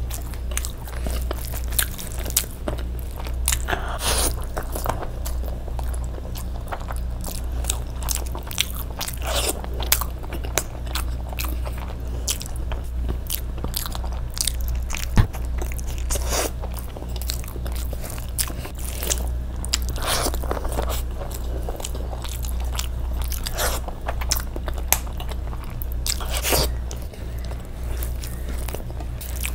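Close-miked eating: a person chewing and biting into chicken and rice, with many scattered crisp clicks and crackles and one sharper click about halfway through, over a steady low hum.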